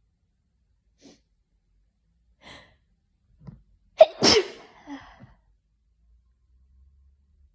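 A person sneezing once: a few short breaths are drawn in first, then one loud, sharp sneeze about four seconds in, trailing off briefly.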